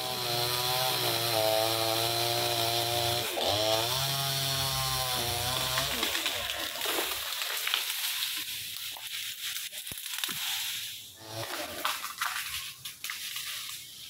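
Two-stroke chainsaw engine running steadily, its pitch dipping briefly and recovering about three seconds in, then dying away about halfway through.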